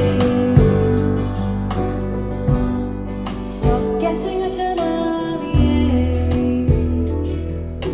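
Recorded music with guitar played back through Marten hi-fi loudspeakers: sustained bass and pitched notes with regular sharp beats.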